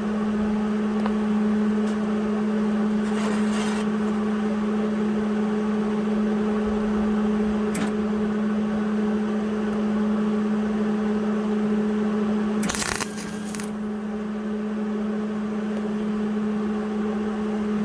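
Wire-feed welder arc crackling and sizzling steadily over a constant hum while a weld is run on a repair. The arc stops about 13 seconds in, after which only the hum continues.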